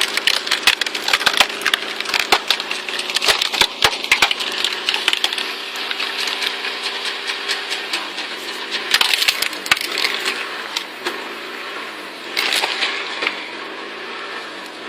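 Wood cracking and splintering as a Stickler screw-cone splitter bores into a green log and forces it apart, with many sharp cracks that are densest in the first half and return in short bursts later. The engine driving the cone hums steadily underneath, its pitch wavering in the second half.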